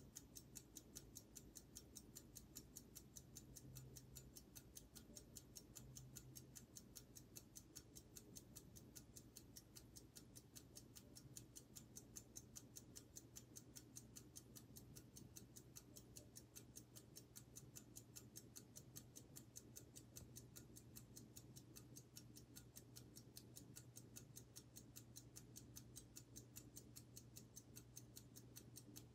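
Silver Elgin B.W. Raymond pocket watch ticking, faint, fast and perfectly even, over a faint low hum.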